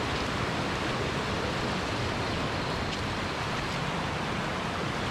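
Fast-flowing mountain stream rushing over rocks and rapids: a steady, even rush of water.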